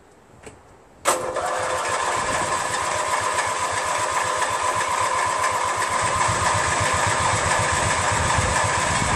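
Electric starter cranking a Briggs & Stratton 14 hp opposed-twin lawn tractor engine without it firing, starting about a second in: a steady starter whine over fast, even compression beats. It won't catch because the fuel shut-off valve is closed, and the long cranking is draining the battery.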